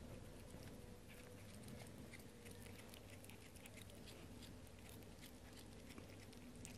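Cat chewing a praying mantis: faint, irregular small crunching clicks of teeth on the insect's body.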